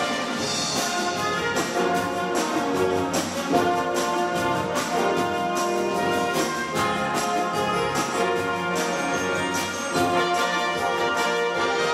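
Marching band playing: brass (trumpets, trombones, horns) over struck percussion hitting a regular beat, a full-band passage with no break.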